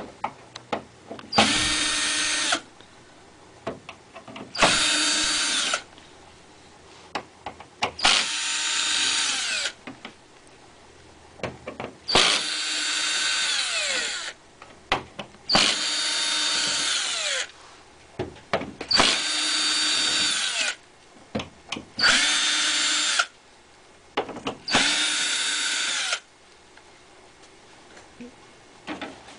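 Power screwdriver backing out the screws on the back cover of a DLP rear-projection TV: eight short runs of a whirring motor, each one to two seconds long, winding down in pitch as it stops. Small clicks and taps come between the runs.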